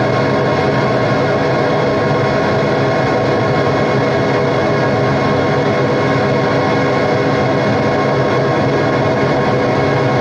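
Live noise music: a loud, unbroken drone of dense noise with many steady tones layered in it, holding at one level throughout.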